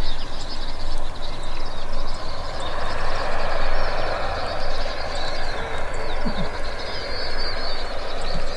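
Small birds chirping and twittering over a steady outdoor rumble, with a rushing noise that swells through the middle and fades again near the end.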